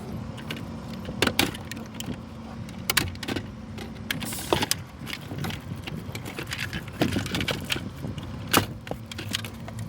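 Irregular sharp clicks and knocks of hands and tools working on a truck's corroded electrical module and its plastic connectors, over a steady low hum.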